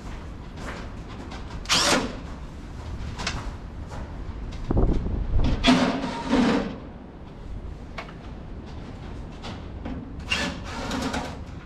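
A cordless power tool runs in several short bursts, backing out sheet-metal fasteners on a tractor's side panels, with scattered knocks of metal between bursts.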